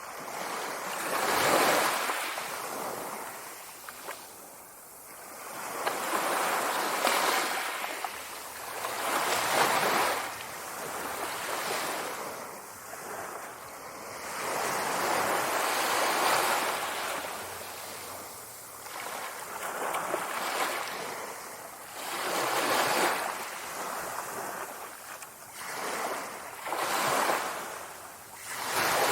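Sea waves breaking and washing ashore, the surf swelling and fading every few seconds.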